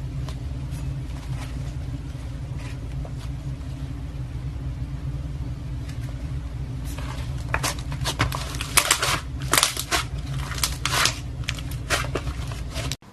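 Slime being squeezed and handled, making scattered crackles and clicks that grow denser and louder in the second half, over a steady low hum. The sound cuts off abruptly just before the end.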